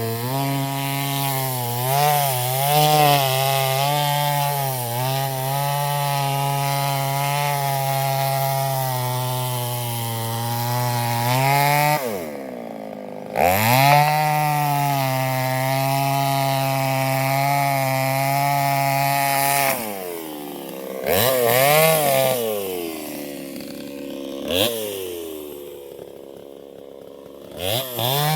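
Chainsaw engine running at high revs while cutting wood, its pitch wavering as the chain loads up in the cut. About twelve seconds in the throttle is let off and the pitch drops sharply before it revs back up. It eases off again around twenty seconds and runs quieter and lower for a few seconds, then revs up again near the end.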